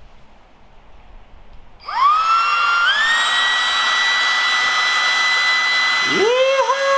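Flextail Gear Max Pump 2, a small rechargeable battery-powered air pump, switched on about two seconds in. Its motor spins up with a rising whine, steps up in speed about a second later, then runs with a steady high whine and a rush of air.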